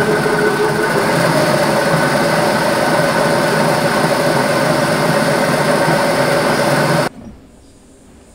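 Metal lathe running while a long, thin drill bit bores into the end of a spinning cast silver blank: a loud, steady whine with a hiss of cutting. A tone steps up slightly about a second in, and the sound cuts off suddenly about seven seconds in as the lathe stops.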